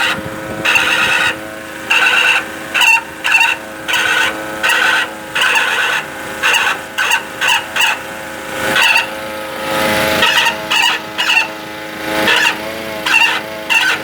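Ford Ranger steering box squeaking as the steering wheel is turned: many short, high-pitched squeaks in irregular bursts over a steady hum.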